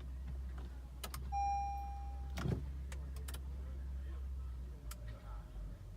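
Inside a 2016 Acura TLX that won't start because of an electrical problem: a steady low hum, several sharp clicks, and one electronic beep held for about a second, typical of a dashboard warning chime. The hum drops away near the end.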